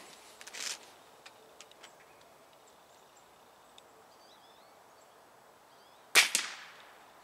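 A break-barrel air rifle, a Benjamin Prowler fired cold after an hour outdoors near freezing, fires a single shot about six seconds in: a sharp crack with a second snap right behind it, dying away quickly.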